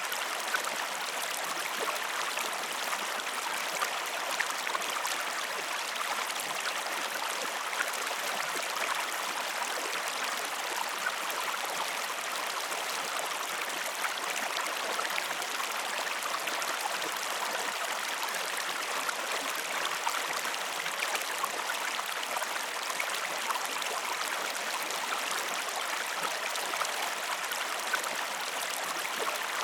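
Stream water flowing steadily, a continuous rush with scattered small splashes.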